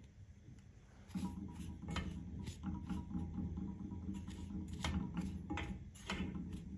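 Silicone spatula stirring dry granulated sugar in a saucepan, with irregular light scrapes and clicks against the pan. Under them a steady low hum sets in about a second in.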